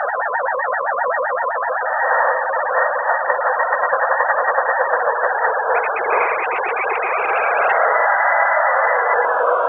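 Electroacoustic music: a dense, mid-pitched band of synthesized noise that pulses rapidly several times a second in stretches. A brighter pulsing layer comes in above it about six seconds in, and the band settles into a steadier hiss near the end.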